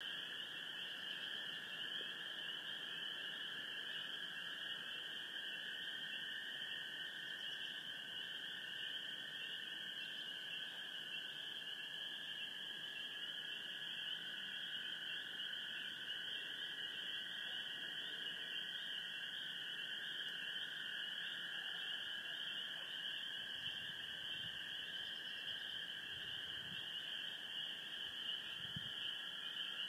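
Chorus of spring peepers and gray tree frogs calling together. It is a steady, unbroken mass of calls in two pitches, a higher band and a lower one, with no pause.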